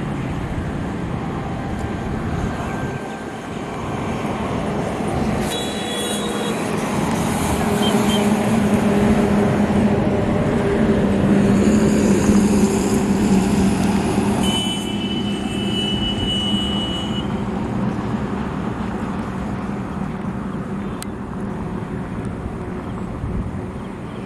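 Engine drone of a motor vehicle passing on a nearby road, a steady low hum over general traffic noise that swells to its loudest about halfway through and then slowly fades.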